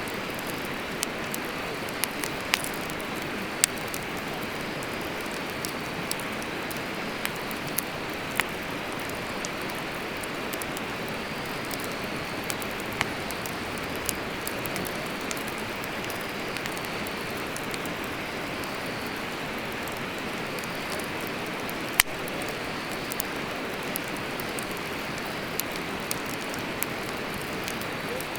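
Wood fire burning in a fire pit: a steady hiss with scattered sharp crackles and pops, one much louder pop about two-thirds of the way through.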